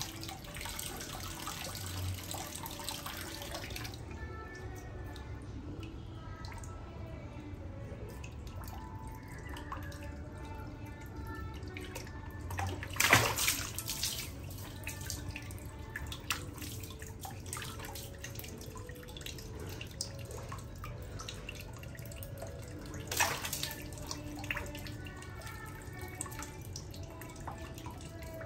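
Water sloshing and splashing as a baby monkey swims, with two louder splashes, one about halfway through and one later on.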